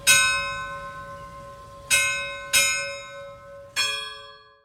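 Church bells struck four times in an uneven rhythm, each strike ringing on and fading; the last strike has a different pitch, as from another bell, and the ringing is cut short near the end.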